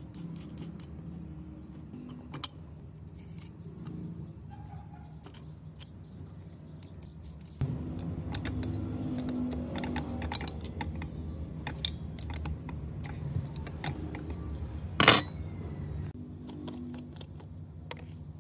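Scattered metallic clinks and taps of metal parts and tools being handled, over a low steady hum that grows louder about eight seconds in, with one sharp knock about fifteen seconds in.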